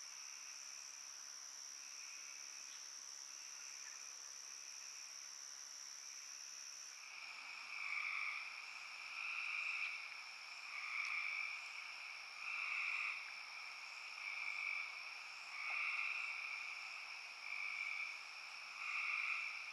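A night chorus: insects keep up a steady, high-pitched trill. A frog calls in short trills repeated about every second and a half, becoming louder from about seven seconds in.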